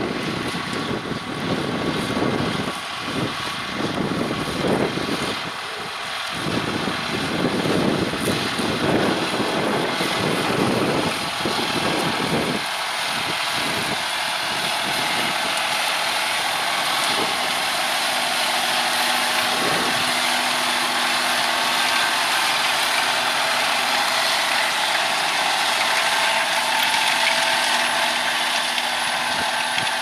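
John Deere 6R 250 tractor's six-cylinder diesel engine running steadily under load as it pulls a reversible plough and press. For the first dozen seconds wind buffets the microphone, and after that the engine's steady hum comes through more clearly.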